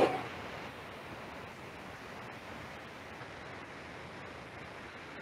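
Steady low hiss of background noise through a computer microphone, with one brief loud sound right at the start.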